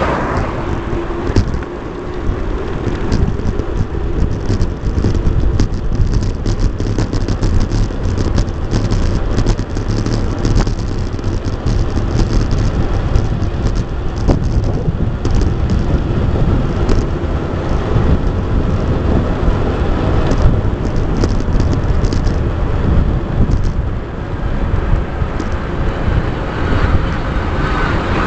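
Mountain bike riding over a rough track, heard through a bike-mounted action camera: steady wind buffeting on the microphone with constant rattling and clicking of the bike and mount.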